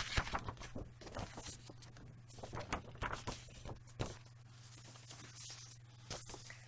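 Soft rustling of paper and card with a few light taps as printed inserts are handled, over a faint steady low hum.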